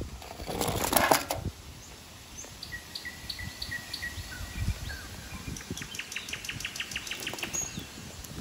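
Small bird singing: a few short, high chirps, then a quick trill of sharp notes at about five a second. About half a second in there is a brief, louder rustling clatter.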